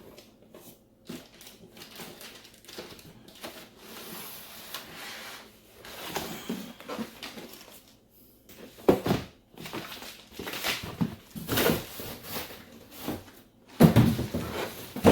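Cardboard box packaging being handled and shifted: irregular rustling and scraping, with sharper knocks about nine seconds in and near the end.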